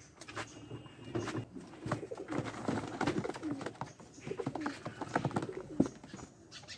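Racing pigeons cooing in a wooden mesh loft, with short knocks, scuffles and wing flaps as a pigeon is caught by hand and taken out.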